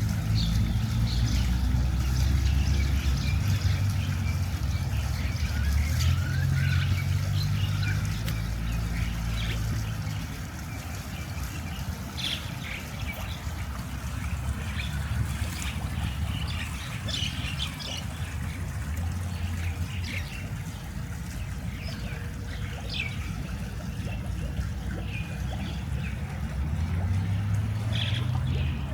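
Birds chirping in short calls throughout, over a steady low rumble with a low hum that is stronger for the first ten seconds and again near the end.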